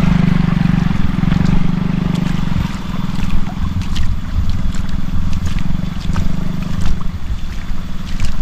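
A small engine running with a steady low hum that eases off about a third of the way in and picks up again briefly later, with scattered clicks and rattles over it.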